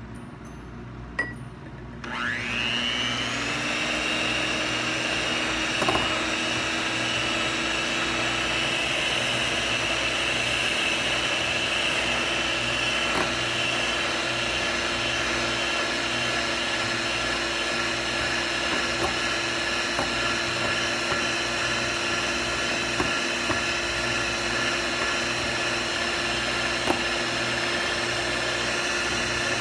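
Small handheld electric whisk (milk frother) switched on about two seconds in, its motor whine rising quickly and then running steadily as it whips instant coffee, sugar and water in a glass bowl. A few faint ticks as the spinning whisk touches the glass.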